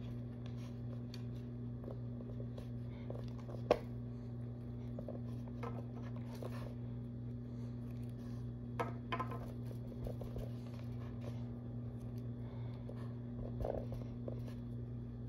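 Steady low electrical hum, with a few faint scattered taps and clicks of sculpting tools working Sculpey polymer clay.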